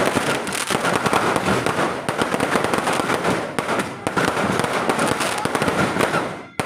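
Fireworks and firecrackers going off in a dense, rapid crackle of overlapping bangs and pops, dying away for a moment just before the end.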